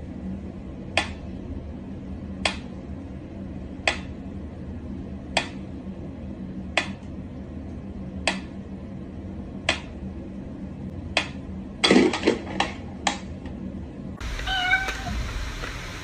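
Mechanical pendulum metronome ticking at a slow tempo, one sharp tick about every second and a half. About twelve seconds in comes a quick flurry of clicks with a short low sound, and near the end a steady hiss takes over.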